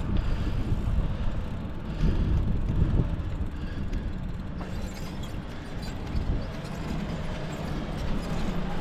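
Wind rumbling on the microphone with road noise from a bicycle being ridden: an uneven, noisy low rumble with no clear tones.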